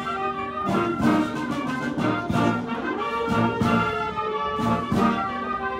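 Military wind band playing: trombones, euphoniums, cornets and clarinets together in full chords, punctuated by sharp percussion strokes.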